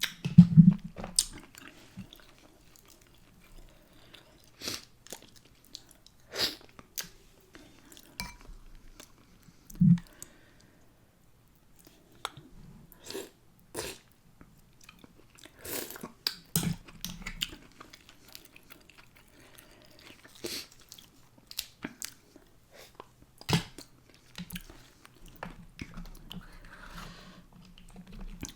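Close-miked eating: a person chewing and biting into a spicy seafood boil of mussels, corn, potatoes and eggs, with scattered wet clicks and mouth smacks. Two louder low thumps come about half a second and ten seconds in.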